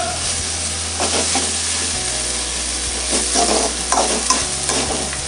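Chopped onions and tomatoes sizzling in hot oil in a metal kadai while a metal spatula stirs and scrapes around the pan, with a few sharper scrapes in the second half.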